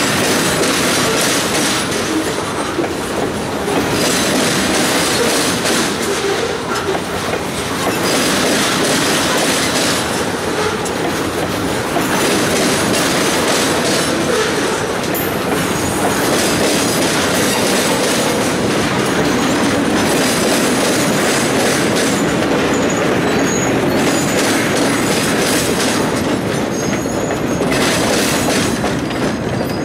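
Freight cars of a loaded continuous welded rail train rolling past close by: steady wheel-on-rail noise and clatter that rises and falls every few seconds, with a few short high wheel squeals in the last several seconds.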